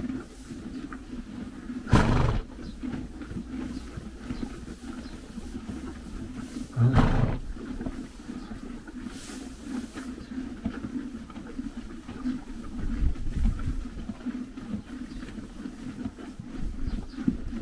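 Horses chewing and pulling at hay at a metal hay feeder, with a steady crunching and rustling. Two sudden louder sounds stand out, a short one about two seconds in and a longer, deeper one about seven seconds in.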